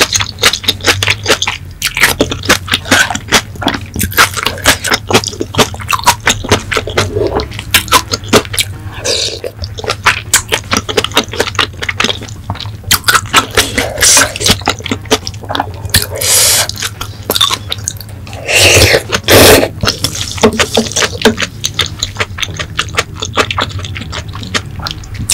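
Close-miked eating: rapid wet chewing, lip smacks and mouth clicks of someone eating spicy chicken feet and pancakes, with a few longer, louder mouth sounds past the middle.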